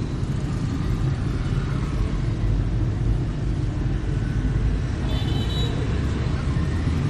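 Street traffic noise: a steady low rumble of passing motorbikes and cars, with a brief high-pitched beep about five seconds in.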